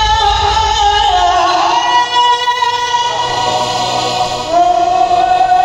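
A song at a jatra stage show: a high voice holds long notes that slide from one pitch to the next over musical accompaniment. A low bass beat drops out about a second and a half in.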